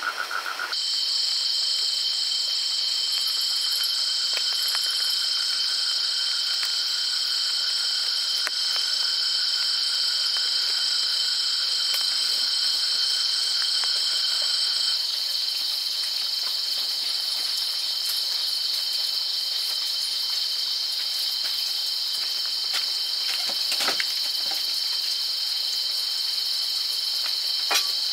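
Chorus of insects making a steady, high-pitched drone, one layer of which drops out about halfway through. A few faint clicks come near the end.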